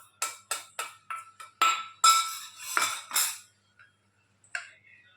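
A metal spoon clinks and taps repeatedly against a ringing metal bowl as spice powder is spooned into a masala. There are about nine quick strikes in the first three seconds, then a pause and one more tap near the end.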